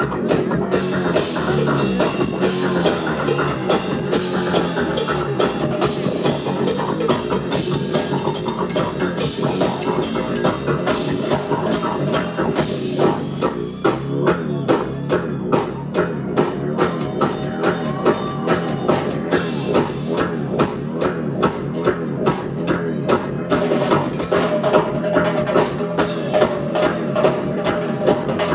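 Live band playing loud rock music with the drum kit prominent. From about halfway through, a steady beat of heavy drum hits comes through at about two a second.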